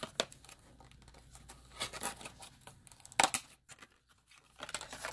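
Plastic blister pack of a metal miniature being opened and handled: crinkling and crackling plastic with scattered clicks, and two sharp clicks a little past three seconds in.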